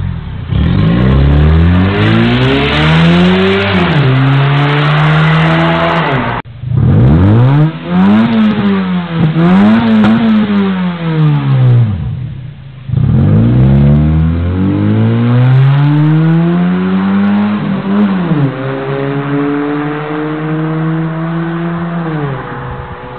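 Car engines with aftermarket valved exhausts revving hard through the exhaust: first a Ford Mustang, then a Mazda 6. The revs rise and fall in pitch over and over, with a run of quick blips in the middle. Near the end a longer rev is held fairly steady, then fades away.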